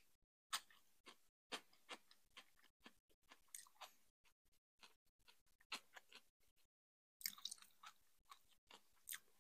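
Close-miked chewing of food: wet smacking and small crunching clicks in irregular bursts, with a short pause about two-thirds through.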